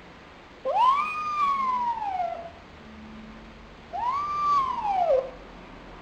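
Young tanuki (Japanese raccoon dog) crying twice, two long whining calls that each rise quickly and then slide down in pitch. It is calling out of loneliness.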